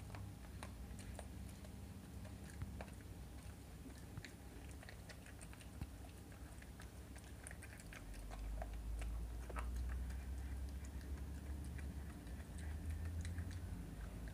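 Miniature schnauzer puppy chewing and gnawing a raw chicken drumstick: irregular small clicks of teeth on meat and bone. A low hum comes up about halfway through.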